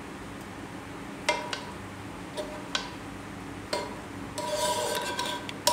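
Metal tongs clicking and scraping against a pan and serving dish as linguine is lifted out and dropped in: a few separate sharp clicks, then a longer scrape with a faint ring about four and a half seconds in.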